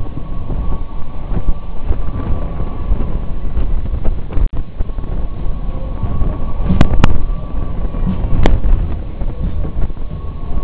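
Wind buffeting the microphone on a moving Twister flying-swing fairground ride, a loud, steady low rumble, with a faint steady high tone underneath. A few sharp clicks come past the middle.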